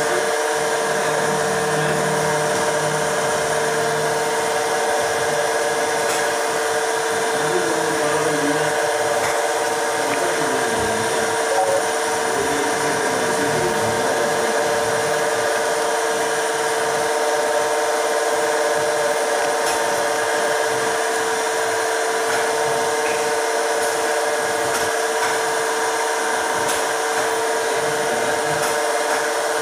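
A machine motor hums steadily with one strong even tone over a drone. A few faint ticks come through it.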